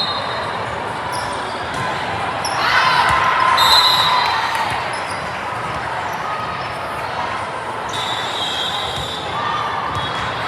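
Indoor volleyball play in a gymnasium: a ball being hit and bounced, with short high squeaks from the court, over steady noise of people in the hall.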